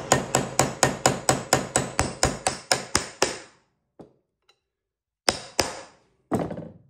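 Hammer rapidly striking a rivet rounding (doming) tool set on the cut end of a number 9 rivet, about four or five ringing metal taps a second for about three seconds, shaping the rivet end into a rounded head. After a pause come two more strikes in quick succession and one more near the end.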